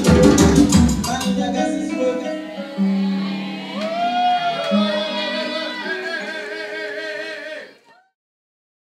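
Dance track played over a club sound system: a heavy drum beat stops about a second in, leaving held notes and a singing voice that fade out near the end.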